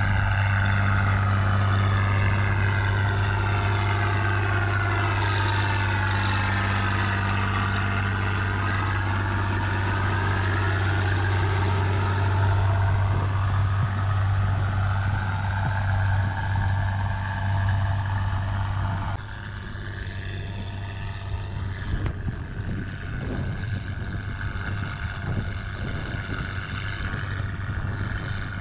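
Diesel farm tractor running steadily under load while its rotary tiller churns flooded paddy mud, with a whine that slides up and down in pitch. About two-thirds of the way in the sound drops to a quieter engine further off, a two-wheel walking tractor working the paddy.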